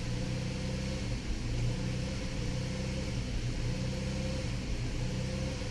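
The van's 3.6-litre Pentastar V6 runs at a steady idle and does not rev while the accelerator pedal is pressed. The mechanic finds that the throttle-position sensors do not change and that the electronic throttle body is not responding.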